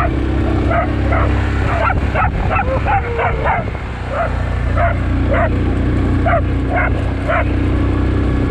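A dog barks repeatedly, about two barks a second with a short break midway, as it runs alongside a moving quad bike. The quad bike's engine runs steadily underneath.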